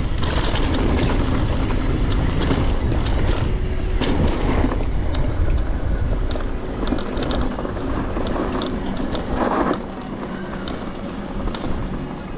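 Mountain bike riding down a dirt trail: a steady rumble of tyres on the ground and wind on the microphone, with frequent clicks and rattles from the bike. It gets quieter about ten seconds in.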